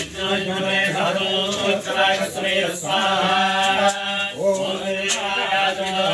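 A priest chanting Sanskrit Vedic mantras in a continuous recitation.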